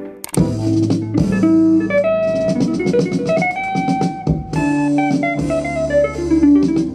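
Background music: a guitar-led track with a drum kit, starting up again after a brief dip a moment in.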